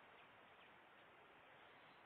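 Near silence: a faint, even background hiss.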